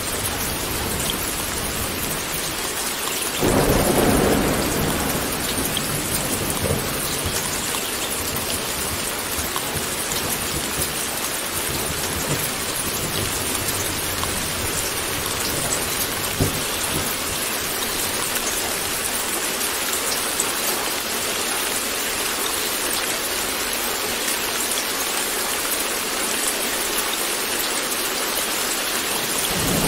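Steady heavy rain pouring, with a clap of thunder about three and a half seconds in that booms for a couple of seconds and dies back into the rain. Another rumble of thunder begins at the very end.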